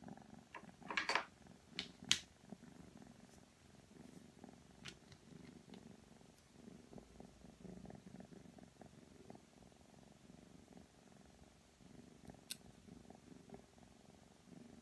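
Ragdoll kitten purring softly and steadily, with a few sharp clicks, the loudest of them in the first couple of seconds.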